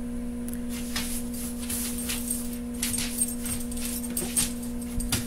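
Scattered light clicks and small metallic jingles, like metal tags or keys jangling, over a steady electrical hum.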